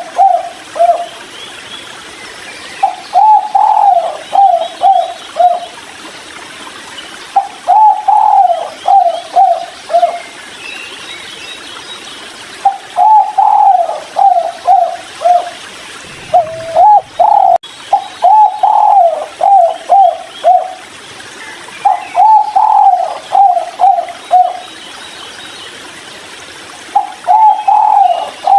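Spotted dove (tekukur) cooing its 'kuk 3' call over and over: about six phrases, each a longer note followed by a run of short falling notes, coming every four to five seconds. Faint chirps of small birds sound in the background.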